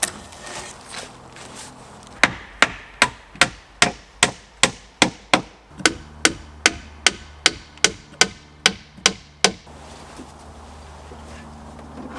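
Hammer blows on wood, about nineteen strikes at a steady two and a half a second, starting about two seconds in and stopping near the end. This is typical of fixing a wooden shelf to a log wall.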